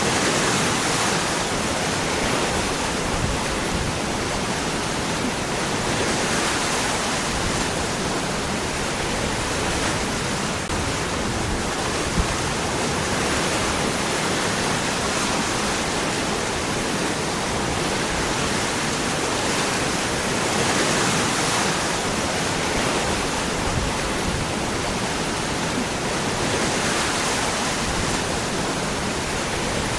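Waterfall: water falling and rushing over rocks in a steady, dense roar, swelling and easing slightly every few seconds.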